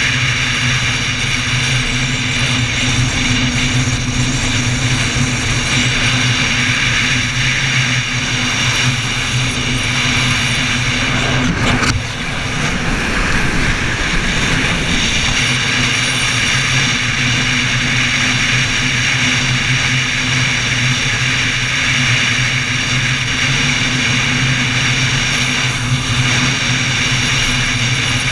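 Motorcycle engine running steadily at cruising speed on the open road, with one brief knock and dip in level about twelve seconds in.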